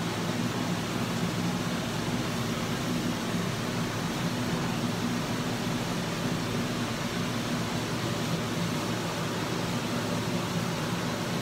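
Salmon pieces frying in oil in a pan on a gas hob, a steady sizzle over a low steady hum.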